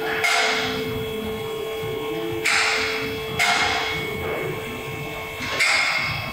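Four sharp knocks at uneven intervals, each with a short ringing tail, over a steady hum that stops near the end.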